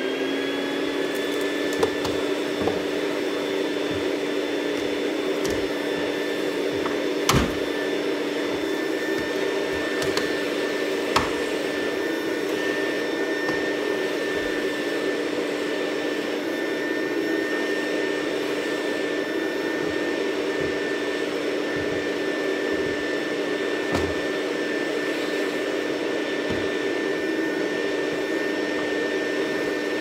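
Canister vacuum cleaner running at full speed, a steady hum with a high whine over it, picked up through its hose and floor wand. A few brief knocks come through, the loudest about seven seconds in.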